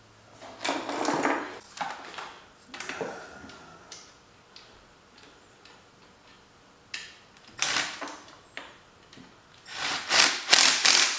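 Cordless impact driver running in short bursts as it drives the screws into an electric motor's end bell, with clinks and rattles of metal parts being handled in between; the loudest bursts come near the end.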